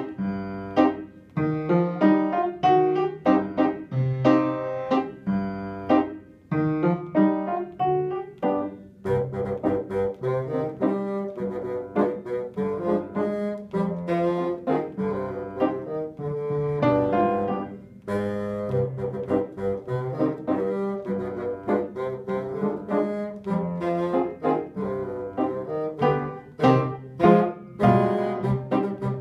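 Bassoon played solo: a melodic passage of quickly changing notes, with a couple of short pauses between phrases.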